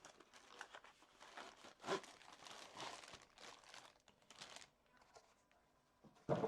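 Packaging being crinkled and rustled as a soldering iron is unwrapped, with a knock about two seconds in and a sharper knock near the end as something is set down on the desk.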